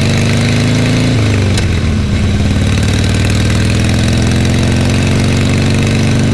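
Harley-Davidson Sportster's V-twin engine under way, its pitch climbing as the bike accelerates, dipping about a second in, then climbing steadily again.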